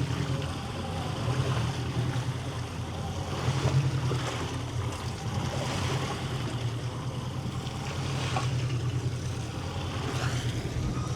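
A motor hums steadily on a small fishing boat, with wind on the microphone and water noise over it; the hum stops right at the end.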